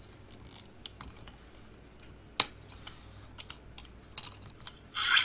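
Plastic clicks and snaps from a Transformers Allspark Tech Bumblebee figure as its cube is pressed into the chest and the chest panel is closed over it, with one sharp snap about two and a half seconds in. A much louder sound starts right at the very end.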